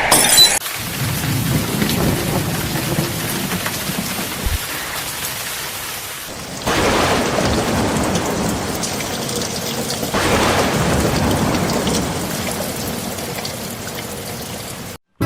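Steady rain with rolling thunder, the rumbles swelling up about a second in, again near seven seconds and again near ten seconds, then fading. It cuts off abruptly near the end.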